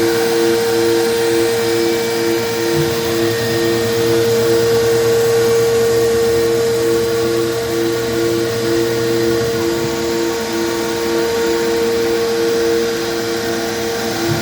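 CNC router spindle running with a 2-flute upcut bit cutting polycarbonate sheet, a loud steady machine noise with a steady high tone and a second tone pulsing about twice a second beneath it.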